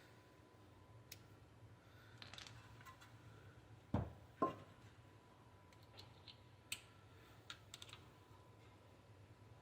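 Scattered light clicks and taps, with two sharper knocks about four seconds in, over a faint steady hum: small parts and hand tools being handled during garage work.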